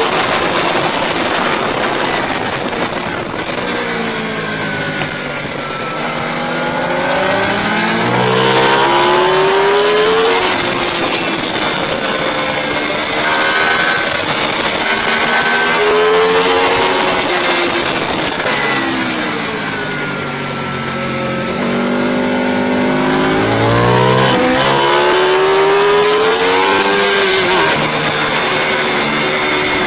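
Racing motorcycle engines heard from an onboard camera at speed, the revs climbing and dropping back again and again through gear changes and braking for corners, over a steady rush of wind noise.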